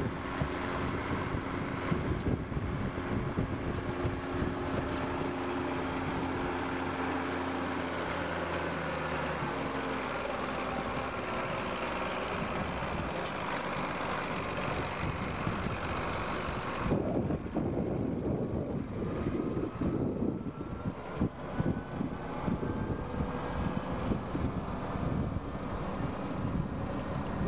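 McCormick tractor's diesel engine running steadily under load while it pulls a mounted plough, its pitch sliding down as it passes about ten seconds in. From about 17 seconds in, a gusty low rumble of wind on the microphone covers the fading engine, with a faint rising whine above it.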